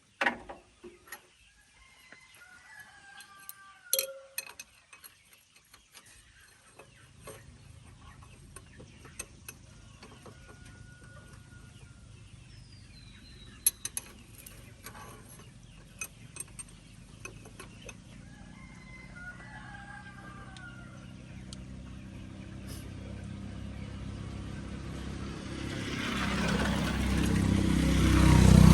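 An engine running, starting about seven seconds in and growing steadily louder until it is loud near the end. Before it, scattered sharp metal clicks and knocks, with chickens calling now and then.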